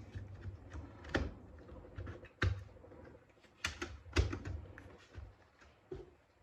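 Irregular light clicks and knocks of small laptop parts and plastic being handled and fitted back together, about half a dozen spread through, the sharpest near the middle.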